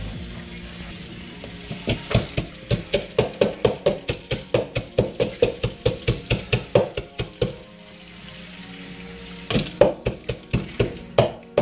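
Roasted peanuts being worked by hand in a plastic bowl: a fast, even run of rasping strokes about five a second. The strokes pause briefly past the middle and start again near the end.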